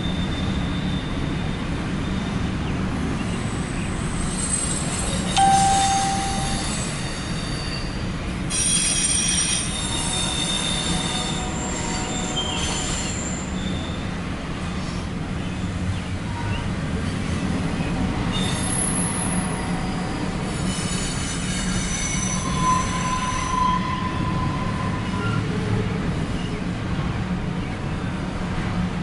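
CSX double-stack intermodal freight train rolling past with a steady low rumble. High-pitched wheel squeals come and go several times as the cars pass.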